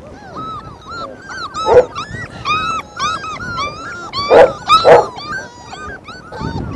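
Kangal puppies whining and crying, a steady chorus of short, high, rising-and-falling cries several times a second, with three louder, sharper yelps about two seconds in and twice around four and a half seconds in.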